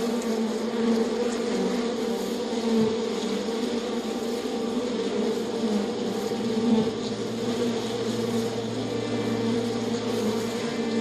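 Bees buzzing in a steady, continuous hum.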